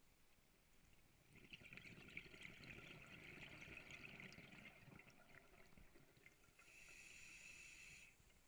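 A scuba diver's breathing on an open-circuit regulator, faint: a bubbly exhale starting about a second in and lasting some three and a half seconds, then a steady hiss from the regulator on the inhale for about a second and a half near the end.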